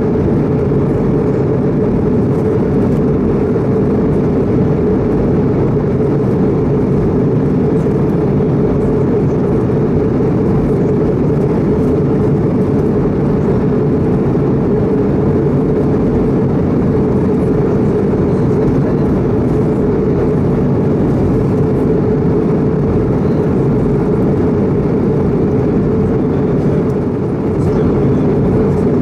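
Steady cabin noise aboard a Bombardier CS100 (Airbus A220-100) in flight: a low, even rush of airflow and engine noise from the Pratt & Whitney PW1500G geared turbofans, heard from a window seat over the wing. It dips briefly near the end.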